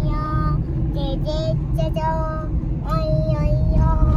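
A child singing, holding long high notes one after another, over a steady low rumble.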